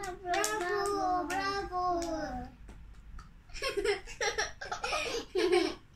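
A child's voice singing a short melody that steps downward and stops about two and a half seconds in, followed after a pause by children talking and laughing in short bursts.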